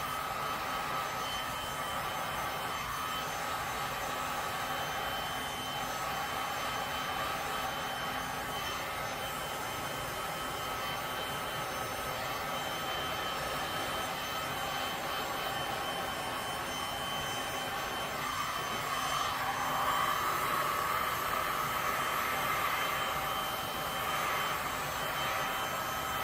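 Heat gun blowing steadily on resin, a rush of air with a high fan whine, growing a little louder about two-thirds of the way through.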